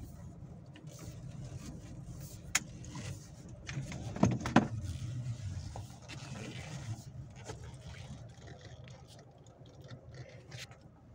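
Low, steady rumble of a Nissan Navara pickup heard from inside the cabin as it rolls slowly to a stop, with a few sharp clicks about two and a half seconds in and again around four and a half seconds.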